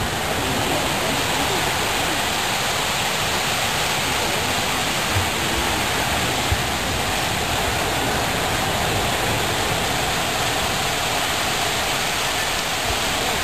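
A steady, even rushing hiss, with two soft knocks about five and six and a half seconds in.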